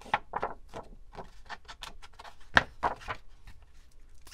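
Ink blending tool dabbed and swiped along the edges of a sheet of paper: a quick series of short scuffing strokes, about three a second, with one sharper knock about two and a half seconds in.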